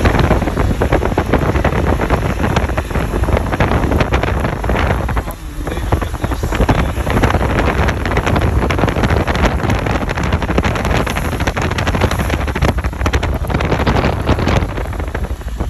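Strong storm wind gusting against the microphone: a loud, heavy rumble with crackling, easing briefly about five seconds in.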